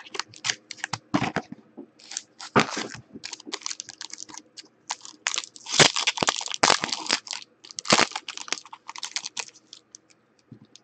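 Hands opening a 2016 Topps Five Star baseball card box and tearing open the wrapped pack inside. The wrapper gives irregular crinkling and crackling, with small clicks of cardboard.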